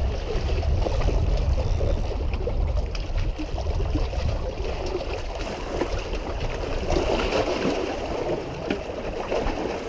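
Small lake waves lapping and gurgling against shoreline rocks, with a steady low rumble of wind on the microphone.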